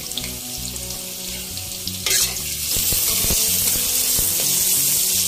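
Cubed potatoes frying in hot oil in a steel kadai, a steady sizzle. About two seconds in there is a sharp scrape and the sizzle grows louder as the potatoes are stirred.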